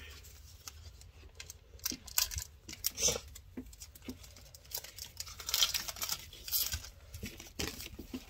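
Foil Pokémon booster pack being torn open and its wrapper crinkled, with short irregular rustles and clicks as the cards are handled.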